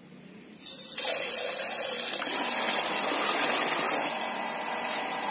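Shimizu PS135 shallow-well water pump kicking in about half a second in and running, with water gushing steadily from its outlet pipe and splashing into a tub. The pump is cutting back in under its automatic pressure switch.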